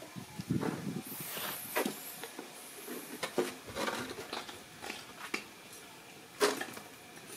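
Scattered light knocks, scuffs and rustles of a dog and two small monkeys moving about on concrete around a plastic stool, with one sharper knock about six and a half seconds in.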